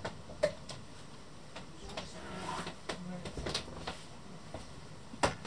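Scattered light clicks and knocks about every half second to second, over a faint low hum: handling and movement noise as someone moves through the boat's cabin.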